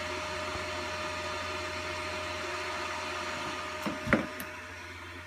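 A 12-volt, 3000-watt Motomaster Eliminator power inverter running under load: a steady whir with a thin whine and a low hum. There is a brief knock about four seconds in, after which the whir is a little quieter.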